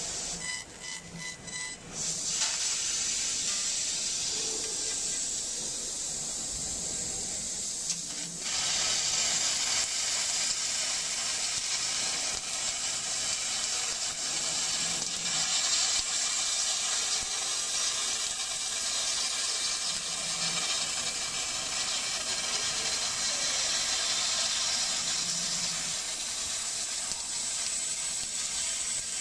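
6 kW fiber laser cutting carbon steel plate: assist gas hissing from the cutting nozzle as the beam cuts. It stutters in short pulses for the first two seconds, then runs as a steady hiss that grows louder and brighter about eight seconds in.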